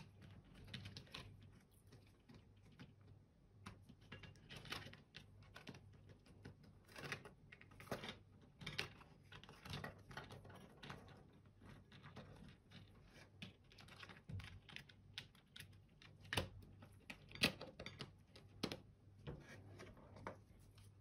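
Faint, irregular clicks and taps of small plastic computer-mouse parts being handled and fitted back together, with two louder clicks near the end.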